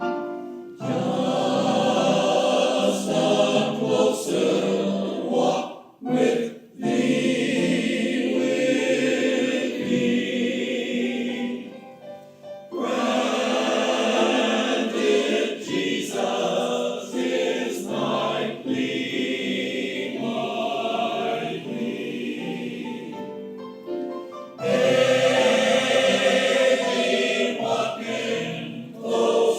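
A choir singing, in sung phrases with brief pauses between them.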